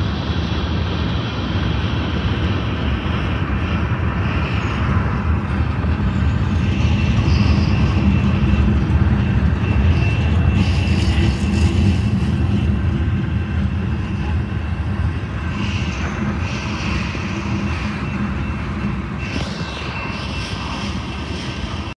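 Freight cars of a slow-moving train rolling past: a steady low rumble of steel wheels on the rails that swells a little in the middle.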